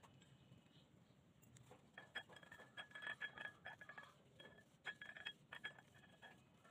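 Gloved fingers mixing crumbly gulab jamun dough in a plate: faint scattered clicks and light clinks of the plate, starting about two seconds in.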